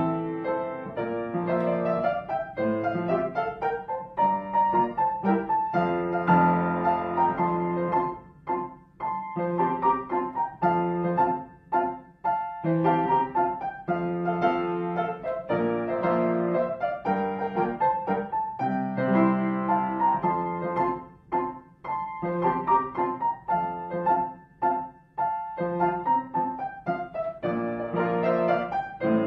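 Background piano music: a melody of pitched notes, with short pauses between phrases.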